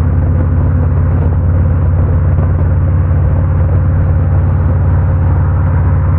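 Harley-Davidson Road King's V-twin engine running steadily at cruising speed, picked up by a helmet-mounted camera. A constant low drone sits under a hiss of wind and road noise.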